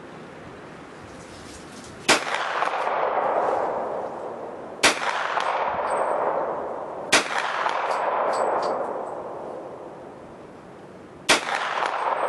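Four unhurried shots from a KelTec Sub2000 carbine firing .40 S&W ammunition, spaced a few seconds apart. Each sharp crack is followed by a long echo that dies away over a couple of seconds.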